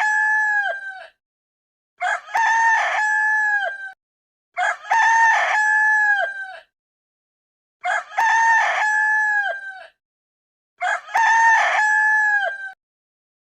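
Rooster crowing cock-a-doodle-doo: the end of one crow, then four more full crows about three seconds apart, each held and then dropping in pitch at the end.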